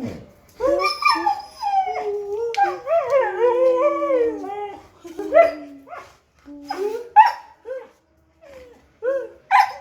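A dog howling and whining in long, wavering cries, then breaking into short yelps and barks through the second half, impatient for its food.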